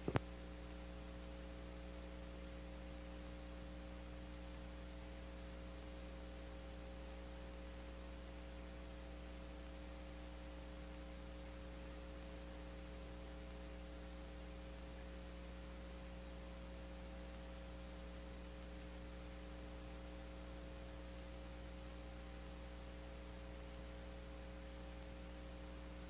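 Steady electrical mains hum, a low buzz with several fixed tones over faint hiss, and a short click at the very start.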